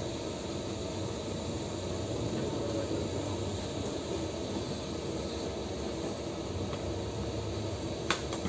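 Steady hiss and hum of TIG welding on a small steel pipe joint, holding even throughout, with one sharp click near the end.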